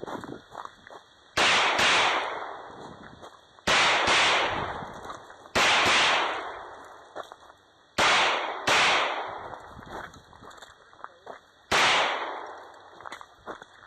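Gunshots during a shotgun/pistol stage: six loud shots spaced roughly two seconds apart, two of them close together around eight seconds in. Each fades slowly, with small clicks and clatter between shots.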